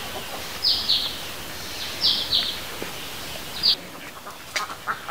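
Short, high-pitched bird chirps, mostly in pairs, over a steady background hiss.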